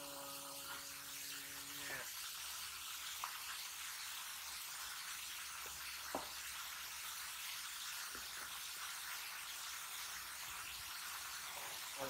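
A low voice holds one long chanted note for about two seconds, then stops abruptly. A steady hiss follows, broken by a few faint clicks.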